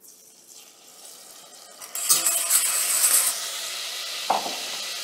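Lemon juice hitting hot olive oil in a stainless-steel pot, hissing and sizzling loudly from about two seconds in and going on steadily. A short knock of the metal whisk against the pot comes about four seconds in.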